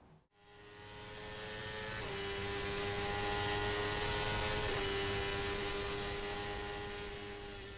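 A steady drone made of several held tones over a hiss, fading in just after the start and fading out at the end; its pitch steps down slightly about two seconds in.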